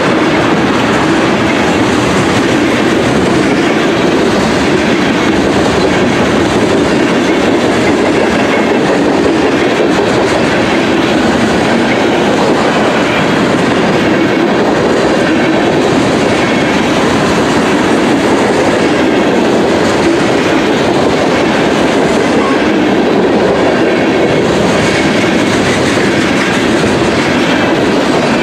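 Freight train's tank cars and covered hopper cars rolling past at close range: the steady, loud rumble of steel wheels running on the rails.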